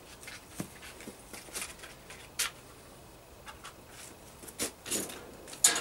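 Scattered rustles and small sharp clicks from fabric and paper being handled by hand as a flag and pictures are taken down from a metal wall. The sharpest click comes about halfway through, and a quick cluster of noises comes near the end.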